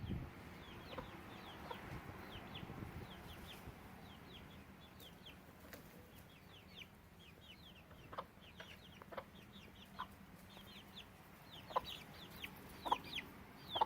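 Backyard hens clucking in short calls, more often toward the end, over a steady run of thin, high, falling chirps.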